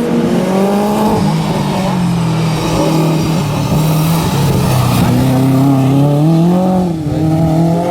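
Touring race car engine running hard, its revs climbing and then dropping sharply about a second in and again near the end, with a slower fall and rise between.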